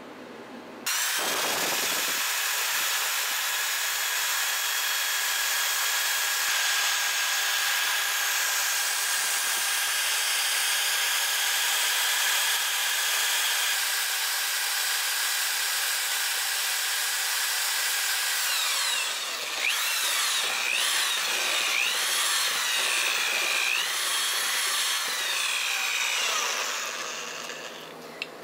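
Handheld immersion blender motor whirring as it mixes batter in an aluminium pot. It starts about a second in, its pitch slides up and down in the later part, and it stops just before the end.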